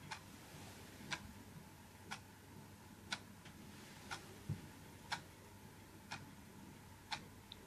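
A clock ticking faintly and evenly, about once a second. About halfway through there is one soft, low thump.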